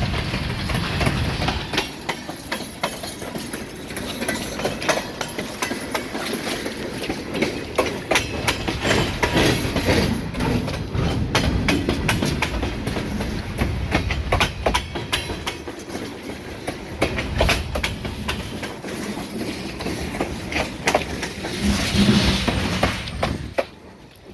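Freight train cars rolling past very close: steel wheels clacking sharply and irregularly over the rail joints over a continuous rumble, fading a little before the end.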